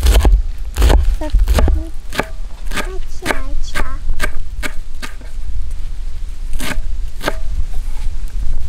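Large chef's knife chopping fresh herbs on a wooden cutting board: a run of sharp, irregular knocks of the blade on the wood, about two or three a second.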